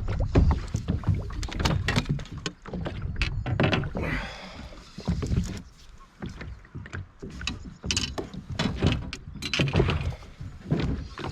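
Irregular knocks and clicks on a small rotomoulded plastic boat over a low rumble, from handling gear while playing a fish on a light rod, with a short hiss about four seconds in.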